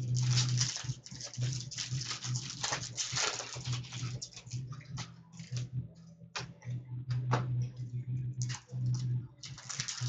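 Trading card packs and cards being handled: foil wrappers crinkling and cards clicking and rustling in quick irregular bursts, over a steady low hum.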